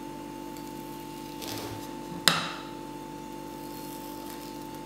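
A spoon stirring thick cake batter in a ceramic bowl, with one sharp knock of the spoon against the bowl a little past two seconds in, over a low steady hum.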